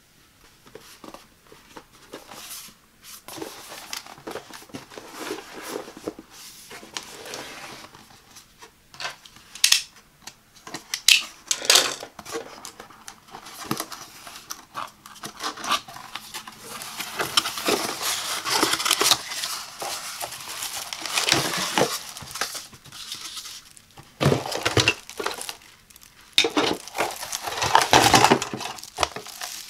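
Hands handling a cardboard product box: tapping, sliding and scraping on the card, with sharp ticks and a tear as the seal sticker is peeled and the box is opened. Near the end there is loud crinkling of the plastic bag wrapped around the garment steamer as it is pulled out of the box.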